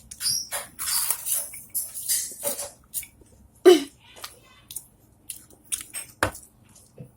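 Potato chips crunching as they are bitten and chewed straight off a plate without hands, in a run of short crackles. A brief vocal sound comes about three and a half seconds in, and a sharp knock follows a little after six seconds.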